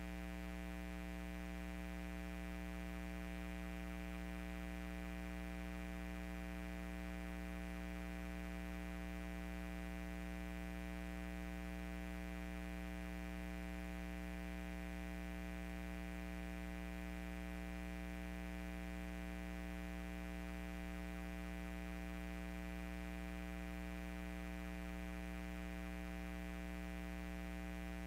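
Steady electrical mains hum and buzz, with no other sound over it.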